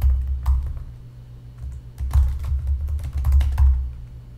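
Typing on a computer keyboard: irregular keystrokes, each with a dull thump. The keys slow for about a second near the start, then come in a quick run.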